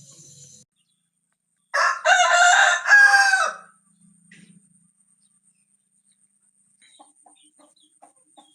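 A rooster crowing once, a single call of about two seconds that starts about two seconds in, followed by a few faint ticks near the end.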